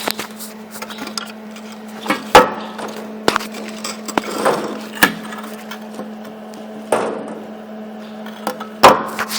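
Hand tools being handled: about five sharp knocks and clicks spread irregularly, the loudest about two and a half seconds in, over a steady low hum.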